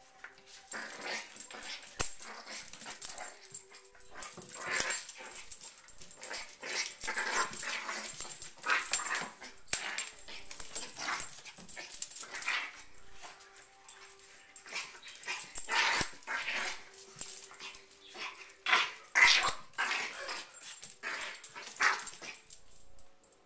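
Chihuahua puppy making a long string of odd noises: short, irregular bursts with brief pauses between them, the loudest near the end.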